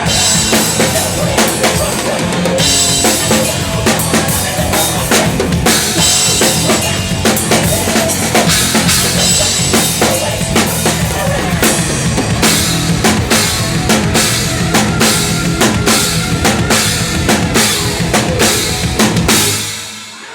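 Live heavy-metal band playing, with the drum kit loud and close: dense, rapid bass drum, snare and cymbal hits driving the music. The whole band stops suddenly near the end.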